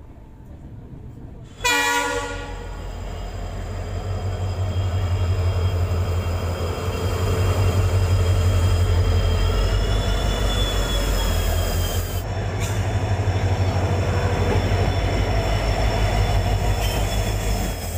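A train horn sounds one short blast about two seconds in. Then an Indian Railways diesel locomotive passes close by with a heavy, steady low engine rumble and rail noise, with a faint high squeal from the wheels.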